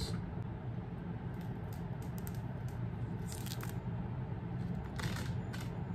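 Protective plastic film being peeled off a new motorcycle helmet visor: a few short, faint crackling tears over a steady low background hum.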